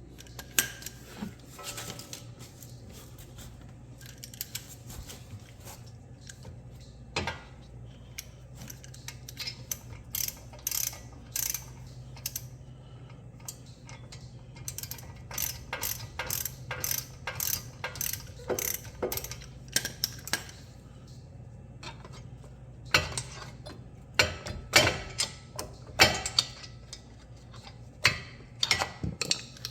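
Socket ratchet clicking in irregular runs as brake caliper bolts are tightened, with pauses between strokes.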